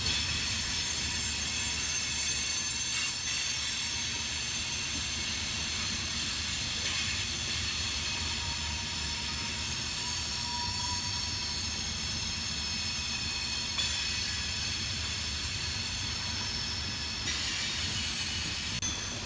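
Loaded coal hopper cars rolling past on a curve: a steady rumble of steel wheels on rail, with a continuous high-pitched squeal from the wheels on the curving track.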